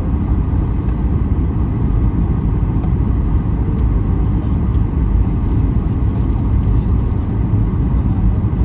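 Steady low rumble of cabin noise inside a Boeing 737 MAX 8 in flight, the CFM LEAP-1B engines and airflow heard from a rear seat.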